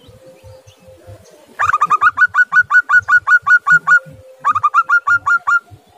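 Zebra dove singing: a fast run of short, clipped cooing notes, about six a second, beginning about one and a half seconds in, then a second, shorter run about four and a half seconds in.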